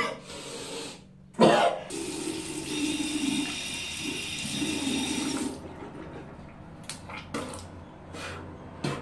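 A short loud burst about a second and a half in, then water running from a bathroom sink faucet for about three and a half seconds before it stops suddenly, followed by a few short knocks.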